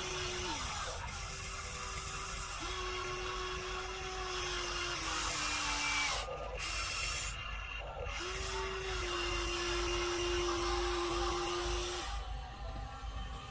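Radio-controlled excavator's small electric gear motors whining in runs of a few seconds, starting and stopping several times and shifting slightly in pitch as the load changes, over a steady gear rattle.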